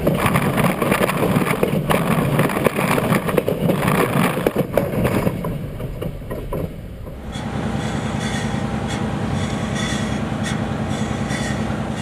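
Railway cars rolling directly over the track, their wheels clattering on the rails. The clatter fades after about five seconds as the train passes. From about seven seconds a steadier rumble with faint high ringing tones takes over.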